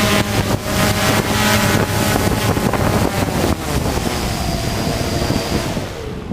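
Hexacopter's electric motors and propellers buzzing steadily, with wind buffeting the microphone. Near the end the pitch falls and the sound fades away.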